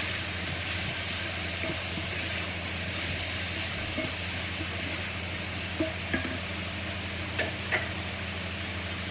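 Sliced onion and garlic sizzling in olive oil in a frying pan, a steady hiss over a low hum, with a few light clicks and knocks about two-thirds of the way in.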